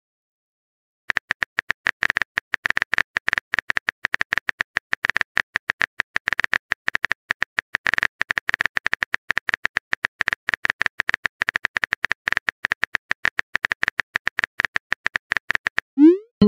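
Texting-app keyboard sound effect: rapid, even key clicks, each with a short high tone, as a message is typed out letter by letter. Near the end, a short rising swoosh as the message is sent.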